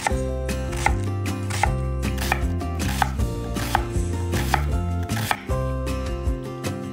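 Knife chopping food on a cutting board in slow, even strokes, about one every three-quarters of a second, over background music.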